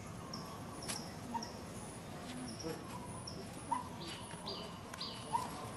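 Forest ambience of small birds calling: short, high chirps repeated about every half second, with some lower single notes and a few faint clicks.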